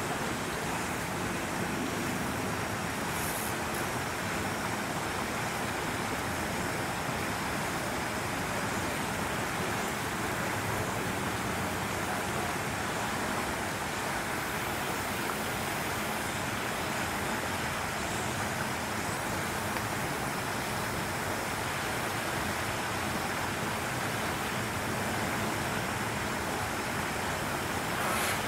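Steady rushing outdoor background noise, even and unchanging, with no animal calls standing out.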